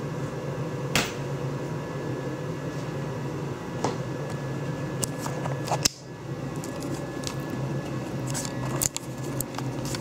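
A few scattered light clicks and knocks over a steady low hum.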